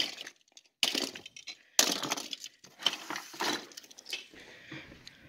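Hot Wheels die-cast toy cars clattering and clinking as they are handled: a string of sharp bursts of metal-on-metal and metal-on-plastic knocks in the first four seconds, then a few softer clicks.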